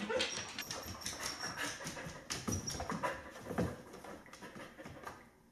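A border collie's paws pattering about, with irregular clicks and scuffles, growing quieter toward the end.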